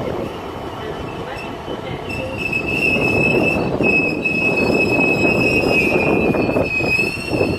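Loaded freight wagons behind a Class 66 diesel rolling through the station. From about two seconds in, a loud, steady high-pitched brake squeal starts as the train slows to a stop.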